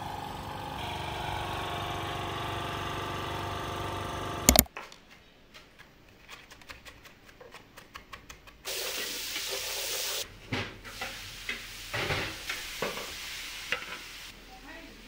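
A steady drone with several held tones ends in a sharp click, followed by a chef's knife chopping onion on a plastic cutting board in rapid, even strokes. Then a loud hiss of a pot on the stove, and a wooden spoon stirring and scraping tripe in a large aluminium stockpot, with a fainter sizzle under it.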